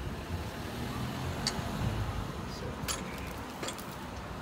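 Steady low rumble of road traffic, with a few light clicks from the exhaust header and its heat wrap being handled, about a second and a half in, near three seconds, and again shortly after.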